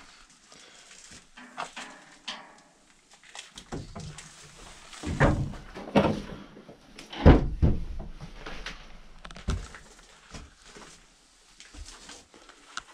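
An old wooden plank door being pulled open by hand, then heavy thuds and knocks of the door and of footsteps on wooden boards. The loudest thuds come about five to seven and a half seconds in.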